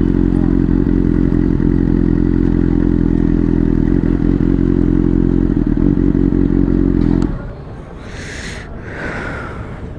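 Superbike engine idling steadily at an even, unchanging beat, then stopping abruptly about seven seconds in, leaving only quieter background noise.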